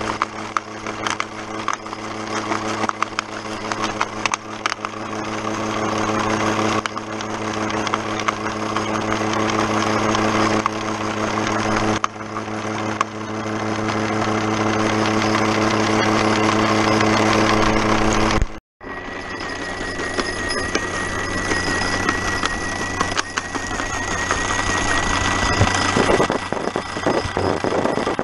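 Small jaw crusher running: a steady machine hum with a dense, fast crackle of stone chunks being cracked between the toothed jaws. About two-thirds through, the sound cuts out briefly and resumes with a thin steady high whine joining the crackle.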